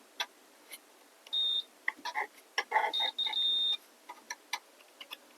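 Digital multimeter's continuity beeper sounding as the probes touch the power supply's pins: a short high beep about a second in, then a longer one about three seconds in with a brief break. Small clicks from the probes and handling are heard around the beeps. The beep means the probes have found a closed circuit, here while hunting for the ground pin.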